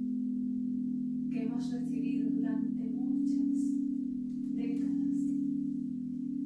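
Alchemy crystal singing bowls ringing in a sustained, steady low hum that slowly swells and eases. A voice sounds briefly over it twice.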